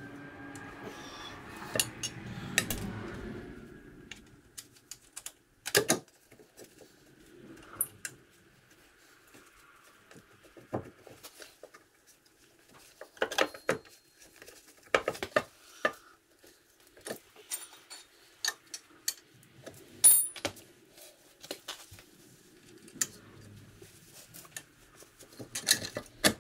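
Irregular metallic clinks and clicks of bolts, hardware and tools being handled against a steel brake backing plate on a rear axle. The sharpest clink comes about two-thirds of the way through.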